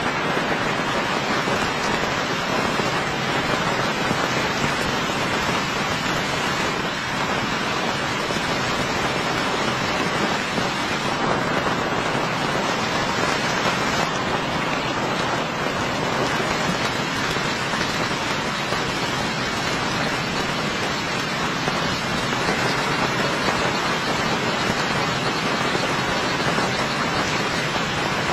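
Heavy rain falling, a steady hiss with no let-up.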